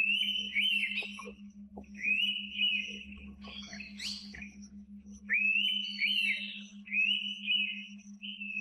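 Indian pitta whistling: about five loud whistled phrases in quick succession, each sweeping up and then held with wavering notes, with a few shorter chirps in the middle.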